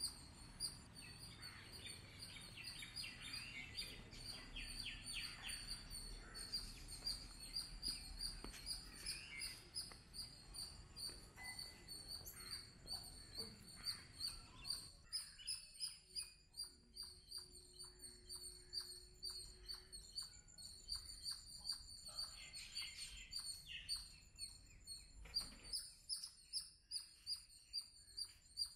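Faint birds chirping, with a steady high-pitched trill throughout. From about halfway through, a short call repeats at a regular pace.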